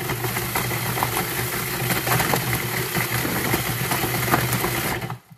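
Cuisinart food processor motor running steadily as its blade grinds hard, stale bread into crumbs, with pieces knocking against the plastic bowl; it stops about five seconds in.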